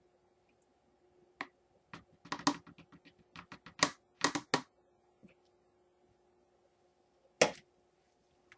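Irregular sharp clicks and knocks, about a dozen, bunched together in the first half with one more near the end: hard soap-making utensils and containers being handled and tapped against each other.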